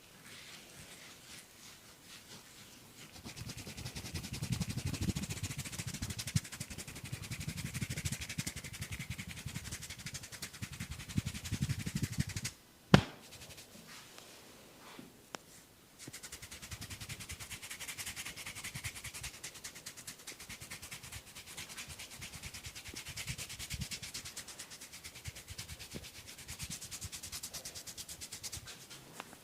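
Hands rapidly slapping and rubbing a client's oiled skin in a vigorous barber massage, in two long runs of fast strokes. Halfway through, the strokes stop briefly for one loud sharp snap.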